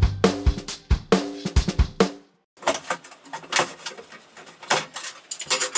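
Background music with a drum beat that stops about two seconds in. Then a string of light clicks and knocks as metal conduit tubes and plastic printed fittings are handled on a wooden tabletop.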